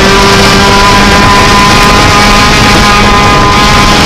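Peugeot 309 rally car's engine running hard at steady high revs, heard from inside the cabin, loud and holding a near-constant pitch over road noise.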